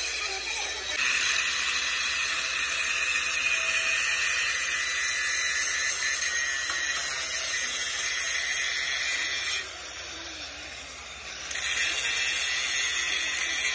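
Large angle grinder grinding the edge of an excavator bucket's steel plate: a steady high whine with a harsh hiss of the disc on steel. It starts biting about a second in, eases off for about two seconds about two-thirds of the way through, then bites again.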